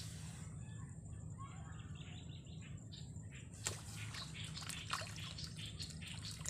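A small bird chirping in a quick series of short calls. From about three and a half seconds in, a run of sharp clicks and small water splashes as a fish takes the bait and the float is jerked across the surface.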